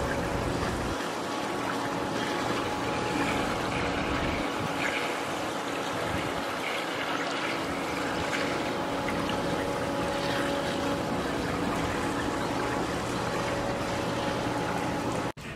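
Water running and trickling in an outdoor pool, a steady rushing sound with a faint steady mechanical hum under it.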